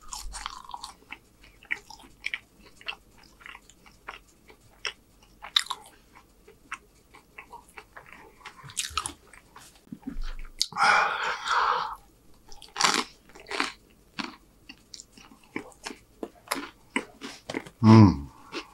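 Close-miked eating: wet chewing, biting and soft crunches of French fries and burger, with many small mouth clicks. There is a louder second-long crackle about eleven seconds in, and a short hummed 'mm' near the end.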